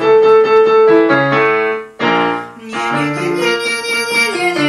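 Digital piano playing a short vocal-exercise melody in chords, pausing about two seconds in and starting the phrase again.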